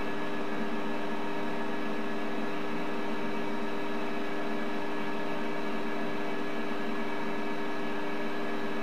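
Optimum D180x300 mini metal lathe running with its chuck spinning: a steady machine whine with several held tones over a hiss, unchanging throughout.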